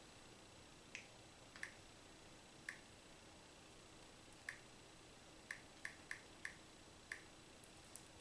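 About nine faint, sharp clicks at irregular intervals, bunched closer together around the middle: fingers tapping the touchscreen of a Samsung Galaxy Tab E while typing in sign-in details.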